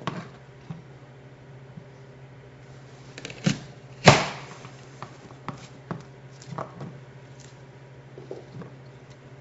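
Knife coarsely chopping an apple on a cutting board: irregular knocks of the blade on the board every half second to a second, the loudest about four seconds in, over a steady low electrical hum.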